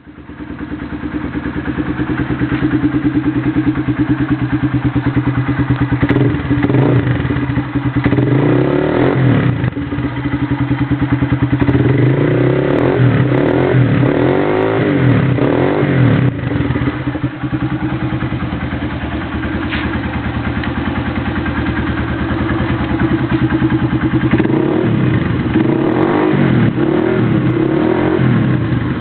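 Honda CG 150 Titan's single-cylinder four-stroke engine idling through an aluminium RS aftermarket exhaust. It is blipped up in revs several times in the middle and again near the end.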